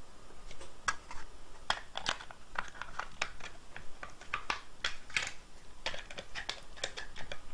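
Irregular clicks, scrapes and rustles from small parts and packaging being handled at close range.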